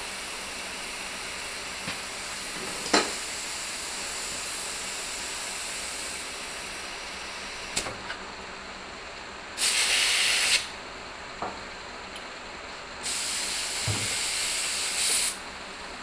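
Compressed air hissing into a tractor tire's inner tube: a steady hiss with two louder blasts, about a second and then two seconds long, and a few sharp metal knocks.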